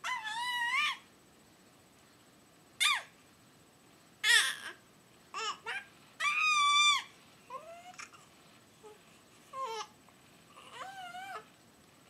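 A baby's high-pitched squeals, about nine of them with short pauses between, some sliding up and down in pitch; the longest lasts about a second.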